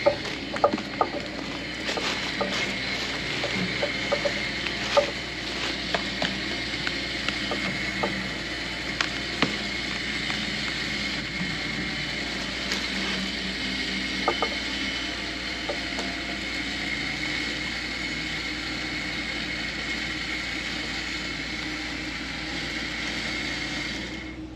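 Superwinch LP8500 electric winch pulling under load: a steady motor-and-gear whine with scattered clicks in the first few seconds, cutting off near the end. The log it is dragging is digging into the ground.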